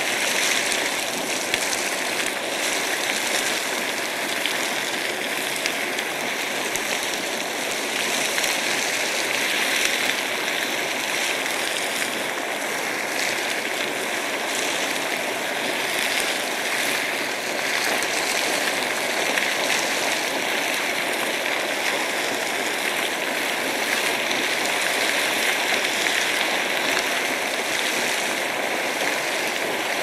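Thermal spring geyser sending up a continuous spout of boiling water: a steady rushing and splashing.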